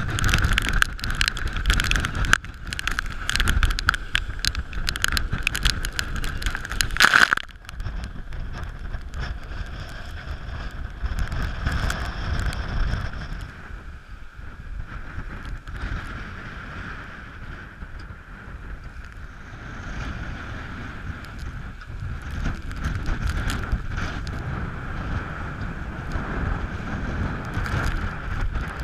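Strong wind buffeting the microphone over the rush of water past a sailboat's hull as it heels under sail in about 20-knot winds. The buffeting is heaviest for the first seven seconds, then drops off suddenly to a steadier rushing noise.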